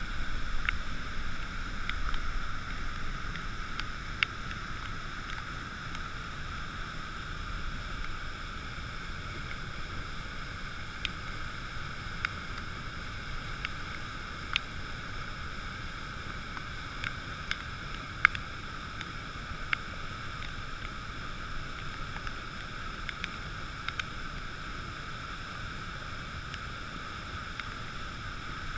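Swollen, muddy floodwater pouring over a weir and churning below it: a steady rushing noise, with scattered sharp ticks throughout.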